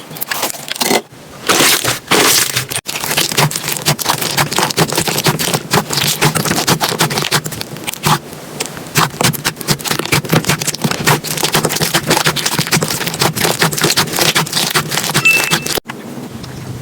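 Slime being squished and worked, giving a dense run of rapid crackles and popping clicks.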